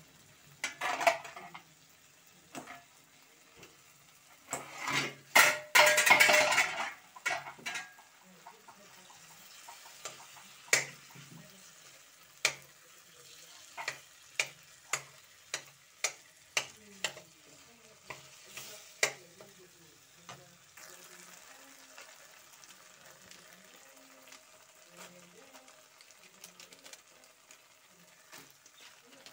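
A metal spoon stirring and scraping in a wok of frying tomato masala with potatoes and boiled eggs, tapping sharply against the pan about once a second through the middle, over faint sizzling. A loud burst of noise comes about five seconds in.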